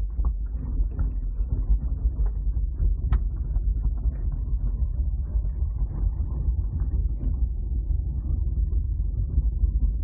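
Car cabin rumble while driving slowly on a rough dirt road: a steady low rumble of engine and tyres, with small rattles and a sharp click about three seconds in.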